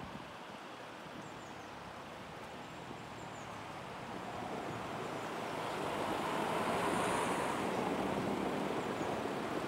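Street traffic: a motor vehicle's tyre and engine noise growing louder from about halfway through, as it approaches and passes.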